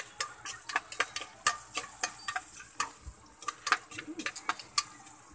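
Metal spatula stirring and knocking against an aluminium pot in irregular clicks, over the steady high sizzle of garlic, ginger and onion sautéing in oil.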